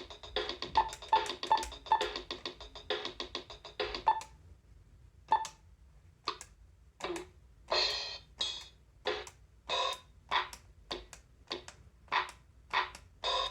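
Kids' electronic toy keyboard playing a built-in drum-machine rhythm with synth notes, which stops about four seconds in. After that, single short notes sound one at a time, roughly every half second to second.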